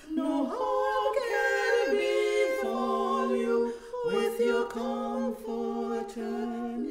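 Female a cappella trio singing a hymn in close harmony, holding long notes, with a brief pause for breath about four seconds in.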